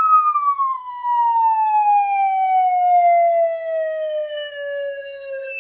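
A sound-effect tone, siren-like, that slides slowly and steadily down in pitch, with a slight hitch near the end.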